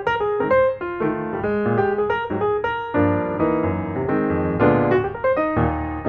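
Background piano music: a quick run of single notes over chords held lower down.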